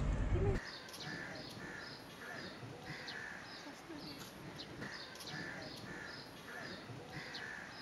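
Birds calling: a harsh call repeated about three times a second, with thin high chirps over it. A loud low rumble cuts off suddenly about half a second in.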